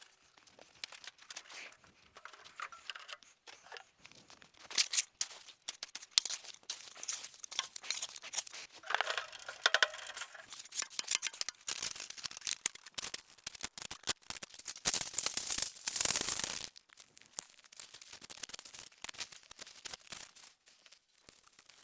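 Irregular close-up handling noises: rustling, scraping and clicking, with a longer, louder scrape or rustle near the middle.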